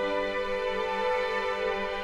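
Background music: slow, sustained instrumental tones held steadily, with a sad, tender feel.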